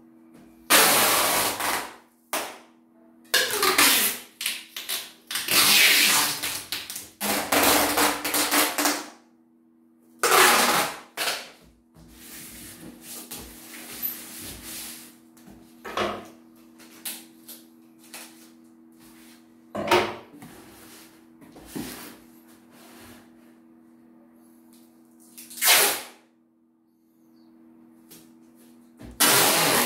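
Clear packing tape being pulled off its roll in loud rasping strips and wound around a stack of cardboard boxes. The pulls come thick and fast in the first ten seconds, then turn into softer rustling and a few single rasps. A faint steady low hum runs underneath.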